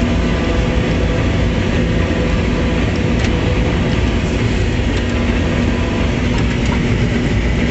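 Farm tractor engine running steadily under way, a constant rumble with a steady hum, as the tractor moves across a hay field.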